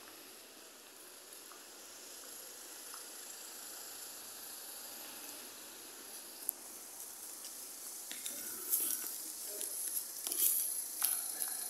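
Steady hissing background noise of a city street, slowly growing louder, with rustling and a few light knocks in the last few seconds.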